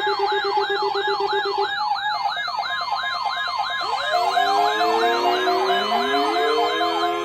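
Layered electronic siren sounds: a fast, repeating up-and-down sweep over a pulsing tone. About four seconds in, several more siren tones join, winding upward.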